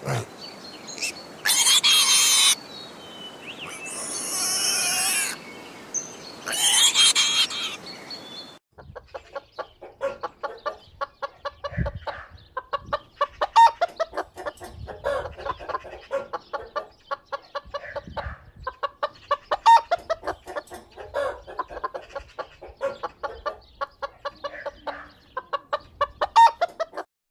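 Chickens: three loud, drawn-out calls about a second each in the first third, then, after a sudden change, a flock of hens clucking busily in quick, short notes.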